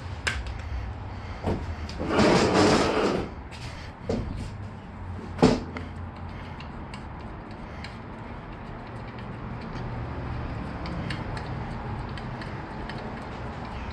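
Handling sounds from fitting a motorcycle's rear brake reservoir: a few sharp clicks and knocks of parts and tools, the loudest about five seconds in, and a short rustling scrape about two seconds in, over a steady low hum.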